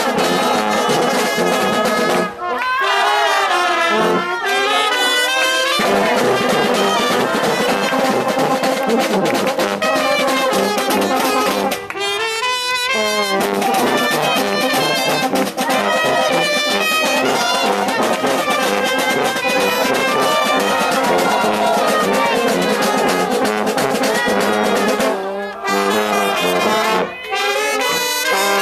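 Brass band playing a tune together: trumpets, trombones and a tuba, with a few brief breaks between phrases.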